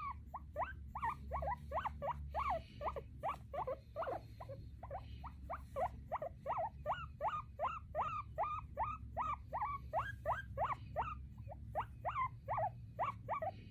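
A small pet squeaking over and over, short squeaks about three a second, each rising then falling in pitch.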